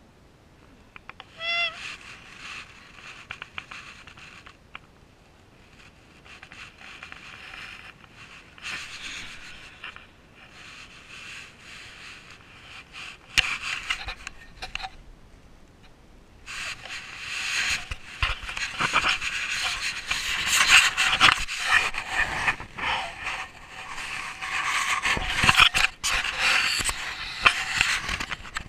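Rustling and scuffing close to the microphone, on and off at first and then louder and busier through the second half. A brief squeak about a second and a half in.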